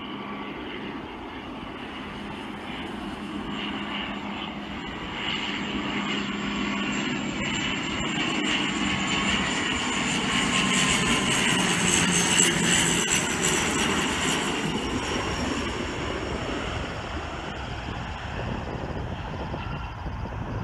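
A De Havilland Dash 8 Q400 twin-turboprop airliner flying past on landing approach. The engine and propeller whine grows louder to a peak about twelve seconds in, then fades, with its high tones dropping in pitch as it goes by.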